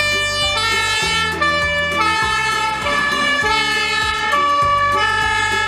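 Fire engine siren sounding as an aerial ladder truck drives past, over the hum of its engine.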